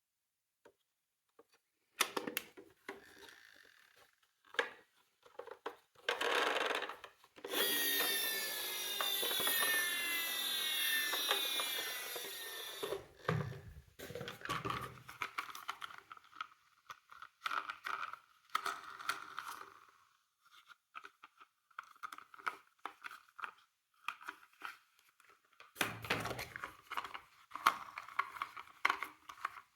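Miniature toy ambulance and police cars being handled and run along: plastic clicks and rattles, with a sustained mechanical whir from about seven seconds in that slowly falls in pitch for roughly five seconds before dying away.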